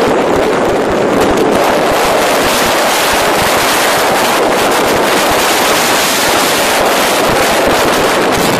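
Heavy wind noise on the microphone of a camera riding on a moving motorcycle at highway speed, with the motorcycle's engine and road noise underneath, steady throughout.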